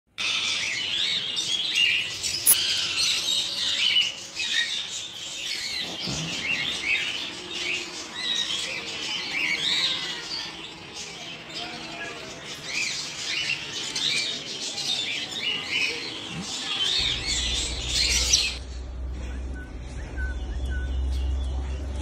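African grey parrot chicks chirping and squeaking in a dense run of short, high calls. About 18 seconds in the calls stop abruptly, and a low steady hum carries on.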